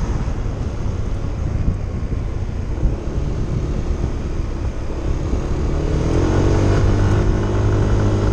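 Motorcycle riding along with wind rushing over the microphone; about six seconds in, the engine note comes up and rises in pitch as it accelerates.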